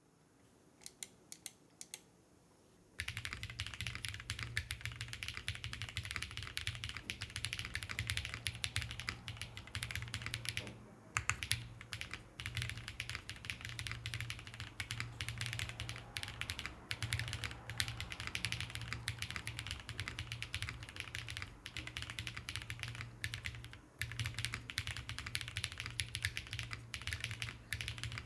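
Typing on a mechanical keyboard fitted with GMK Cherry-profile doubleshot ABS keycaps. A few single key presses come first, then steady continuous typing from about three seconds in, with brief pauses twice. A steady low hum sits underneath.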